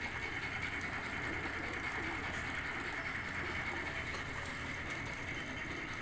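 Steady background hum and hiss with a faint constant high whine, unchanging throughout.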